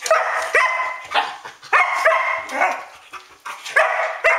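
Standard poodle barking repeatedly out through a glass door at night, about two sharp barks a second, with a short break about three seconds in.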